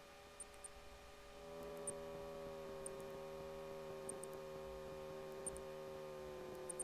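Faint steady hum of a WT9 Dynamic light aircraft's engine and propeller heard through the intercom audio feed. It grows a little louder about a second and a half in, then sinks slightly in pitch.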